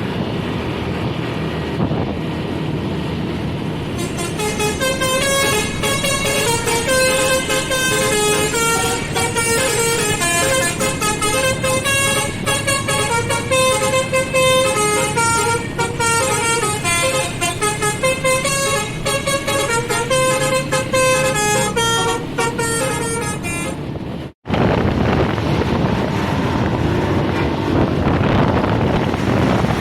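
Bus basuri musical horn playing a quick tune of stepped notes for about twenty seconds over engine and road noise. It stops suddenly with a brief dropout, and only vehicle and wind noise follow.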